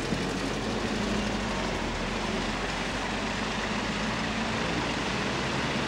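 Opel Rekord C driving along a dirt track, its engine running steadily over a constant hiss of road noise.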